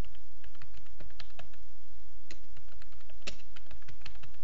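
Typing on a computer keyboard: a quick, irregular run of key clicks as a line of text is typed, over a steady low hum.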